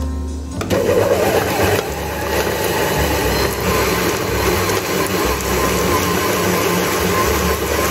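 Kenwood Chef stand mixer switching up to high speed about a second in, then running steadily as its dough hook kneads bread dough in the bowl.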